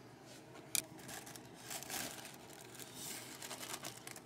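Faint rustling and scraping of fingers handling and turning the textured, paint-coated stand, with one sharp click a little under a second in.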